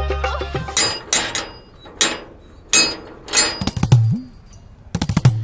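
A metal grille gate being banged on, a series of loud clanging knocks in irregular groups, some in quick succession near the end. Background music fades out in the first second.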